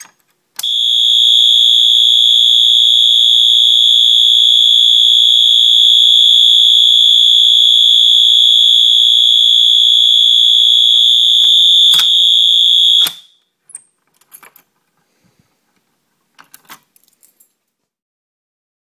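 Wheelock MT-24-LSM multitone fire alarm horn sounding one continuous high-pitched tone for about twelve seconds, starting about half a second in and then cutting off suddenly. A sharp click sounds about a second before it stops, and a few faint clicks follow after it.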